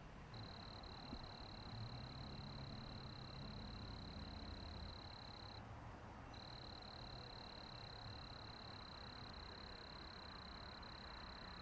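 Outdoor night ambience: a steady high-pitched trill from a calling night creature, broken once for under a second about halfway, over a low steady rumble.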